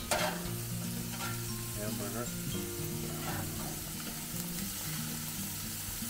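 Hamburger patties and lamb chops sizzling on a gas grill, with a spatula scraping over the grates a few times. Background music plays under it.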